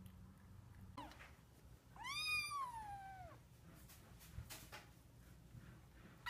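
A tiny three-week-old black kitten mewing while held in the hands: a brief squeak about a second in, then one long whiny mew that rises and falls in pitch. The next mew begins right at the end.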